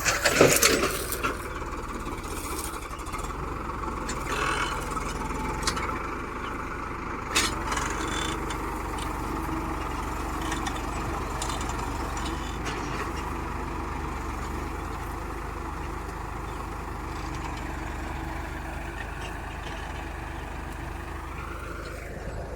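Farmtrac 6055 tractor's diesel engine running steadily, with loud clattering knocks in the first second and a sharp clank about seven seconds in. Near the end the engine note dips slightly and then climbs back.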